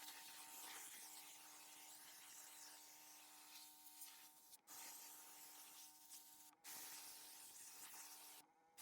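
Pressure washer spraying paving, faint: a hiss of spray over a steady machine hum. The spray breaks off briefly about four and a half and six and a half seconds in, then stops near the end while the hum runs on.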